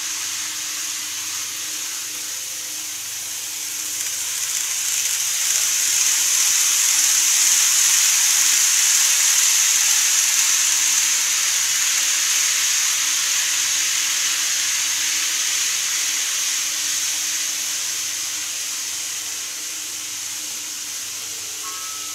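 KATO E231-500 Yamanote Line model train running past on curved viaduct track: a steady whirring hiss of wheels and motor that grows as the train approaches, is loudest roughly a quarter to halfway through, then slowly fades as it goes away.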